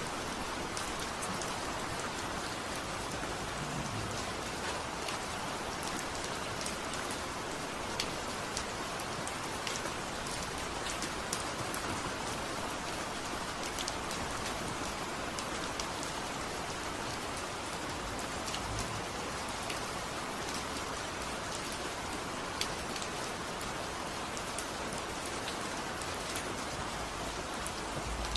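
Steady rain, a constant hiss with many scattered sharp drop ticks.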